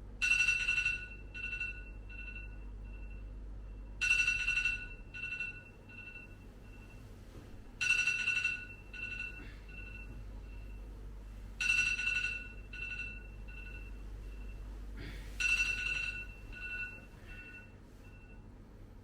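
Electronic ringing chime, sounding five times about every four seconds, each ring a two-note tone with quickly fading repeats, over a low steady hum.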